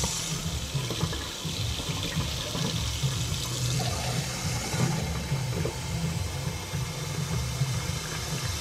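Kitchen tap running steadily into a stainless steel sink, with a plastic cup held under the stream and filling with water.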